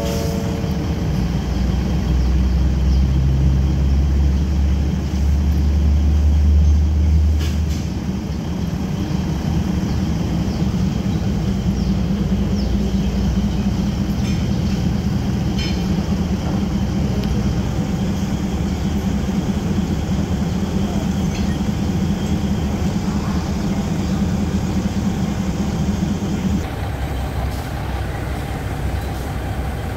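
Diesel railcar train idling, a steady engine hum with a deeper throb over the first eight seconds or so that then eases off. The hum changes a little near the end.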